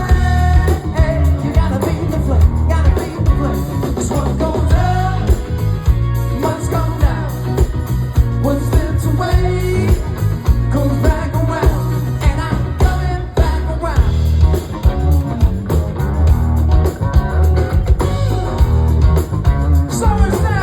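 Live rock band playing loudly, with a singer over a strong bass and drum beat.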